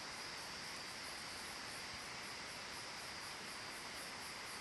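A faint, steady chorus of insects chirping in a fast, even pulse.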